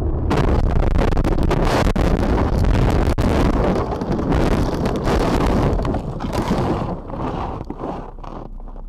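A loud rushing noise that sets in abruptly just after the start and fades away over the last few seconds.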